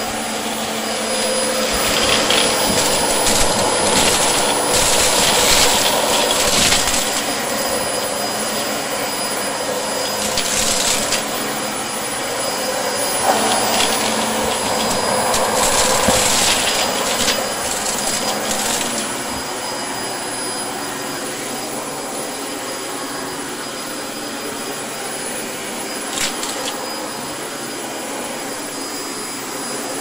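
Dyson DC25 ball upright vacuum cleaner running with a steady high whine. Over roughly the first two-thirds come louder spells of rattling as it picks up piles of mixed debris from the carpet, then it settles to a steadier run.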